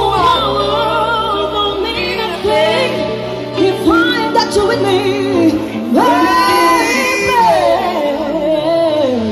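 Live band performing a song: a woman sings the lead with long, wavering held notes, a man's voice joining in, over the band's electric guitar, bass and drums.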